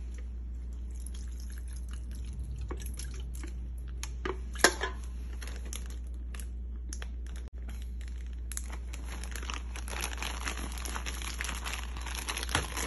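Plastic zip-top bag crinkling and rustling, with scattered clicks, as boneless chicken feet are worked around in marinade inside it. The crinkling grows busier in the last third.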